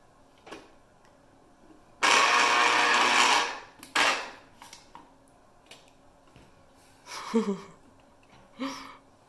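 Electric citrus juicer motor spinning its reamer cone as an orange half is pressed down on it: a loud steady whir that starts suddenly, runs about a second and a half and dies away, then a brief second burst about two seconds in.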